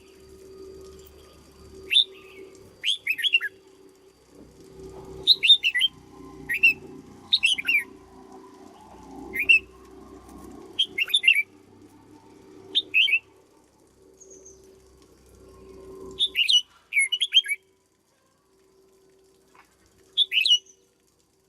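Red-whiskered bulbul singing: short, bright, warbled whistled phrases repeated every second or two. Beneath them runs a faint steady hum that stops about three-quarters of the way through.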